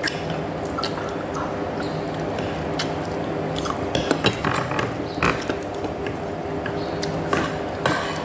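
Metal spoon clinking and scraping against a ceramic soup bowl of noodles, in scattered sharp clicks with a cluster about four seconds in, over a steady background hum.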